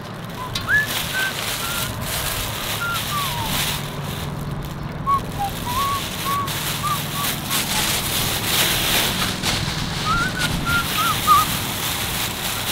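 Thin plastic shopping bag crinkling as it is scrunched and pulled open by hand, with a string of short whistled notes in a wandering tune.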